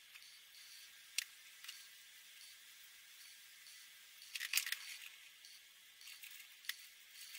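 Faint scratching of a Winsor & Newton Promarker felt-tip marker drawing on paper, with a sharp click about a second in. About halfway through there is a short clatter of clicks as the red marker is put down and a yellow one picked up.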